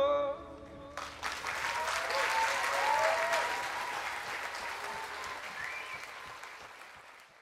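The song's last note stops within the first second, and an audience breaks into applause. The applause then fades away steadily toward the end.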